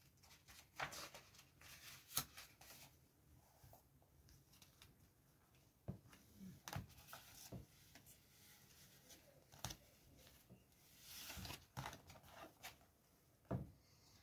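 Faint, scattered rustles and soft clicks of paper: a paperback's pages being leafed through, then a deck of cards being handled, with the longest rustle a little before the end.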